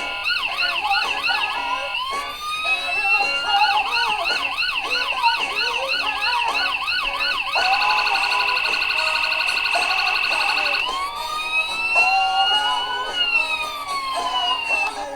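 Electronic siren of a 1/18-scale die-cast Ford Crown Victoria police car model, running through its patterns: a fast yelp, switching to a steady held tone about eight seconds in, then a slow wail that rises and falls near the end.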